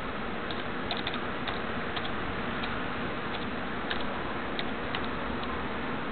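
Light, irregular clicks from computer use, about one to two a second, over a steady hiss.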